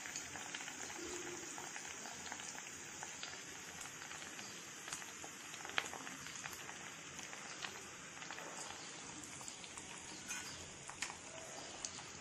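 Deep-frying oil sizzling around taro root (arbi) pieces in a steel kadhai: a faint, steady hiss with scattered small crackles.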